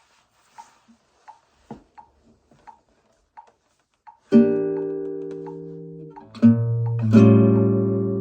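Kazuo Yairi CY 130 classical nylon-string guitar, made in Japan in 1976. A few faint taps and string ticks are followed, about four seconds in, by three strummed chords, each ringing out and slowly fading.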